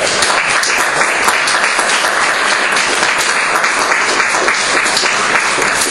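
Audience applauding, many people clapping steadily throughout.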